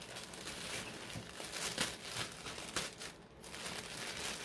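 Thin plastic mailer bag crinkling and rustling as it is handled, in irregular crackles with a brief pause near the end.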